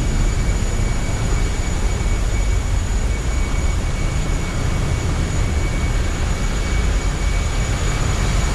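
Steady machinery noise in a bulk carrier's engine spaces: a constant low rumble with a faint, thin high whine over it.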